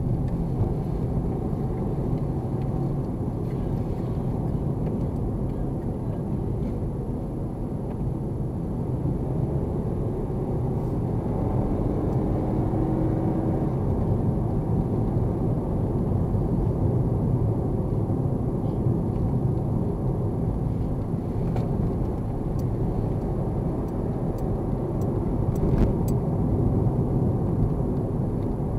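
A car driving on the road, heard from inside the cabin: a steady low rumble of tyres and engine, with one short click near the end.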